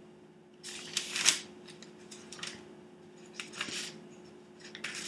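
Thin Bible pages being turned and leafed through: several short papery rustles, the loudest about a second in.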